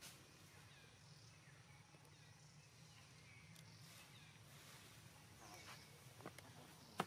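Quiet outdoor ambience with a steady low hum, a few faint high chirps scattered through it, and a sharp click near the end.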